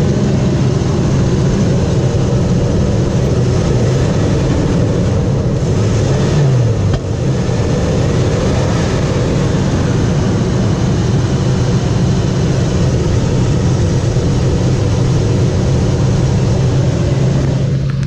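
2003 Ford F-150's 4.6-litre V8 running steadily at idle. It is restarted after a crank-no-start, and the owner suspects an intermittent fuel pump problem.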